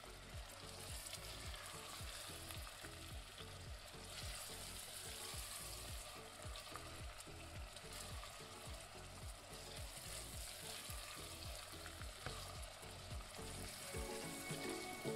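Small meatballs sizzling as they fry in a tiny miniature pan, a steady faint hiss. Soft background music runs underneath and grows louder near the end.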